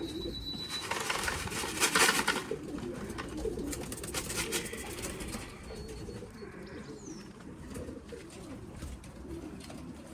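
Racing pigeons cooing steadily, with a louder noisy burst about two seconds in and a smaller one about four seconds in.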